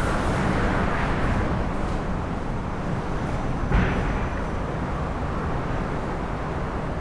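Heavy wind storm in a city: strong gusts buffeting with a deep rumble and hiss, fading slightly, with a brief louder burst about four seconds in.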